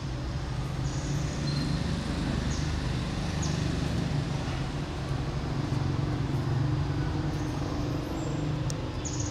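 Steady low rumble of a running motor, with a few short high-pitched chirps over it.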